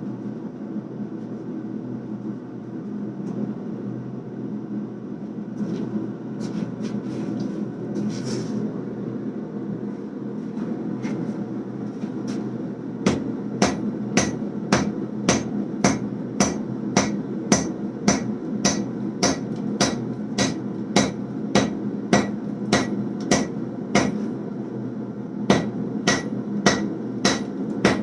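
Hand hammer blows on a red-hot billet of layered 1095 and 15N20 steel on an anvil, struck fast and evenly at about two a second, with a short pause partway through. These are the first forge-welding blows that squeeze the damascus stack together, heard over the steady rush of the forge.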